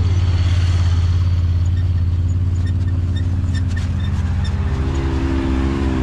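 Side-by-side UTV engine running steadily under way, a loud low drone, with a few brief rattles about midway.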